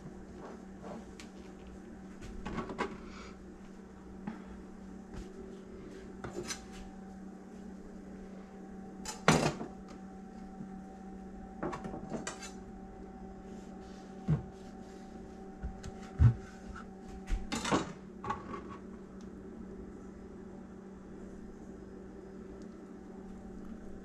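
Scattered knocks and clinks of a ceramic plate, a kitchen knife and a plastic cutting board as burritos are handled and cut, the loudest about nine seconds in. A steady low hum runs underneath.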